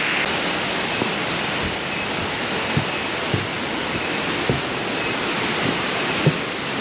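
Waterfall: a steady, loud rush of falling water, with a few soft knocks over it.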